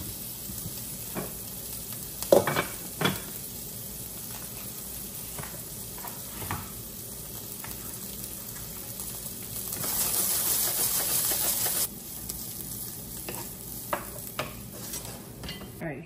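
Sliced onions and green peppers sizzling in oil in a frying pan, a steady frying hiss with a few sharp knocks. The hiss grows louder and brighter for about two seconds past the middle.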